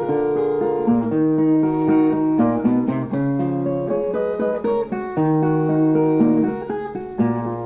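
Brazilian viola played alone in an instrumental passage: a plucked melody of single notes over lower bass notes, with some strummed chords.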